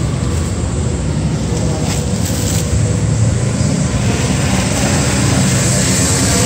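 Clear plastic wrapping on a wire birdcage crinkling and rustling as it is pulled off by hand, louder from about four seconds in as the plastic is pressed close to the microphone. A steady low rumble underlies it.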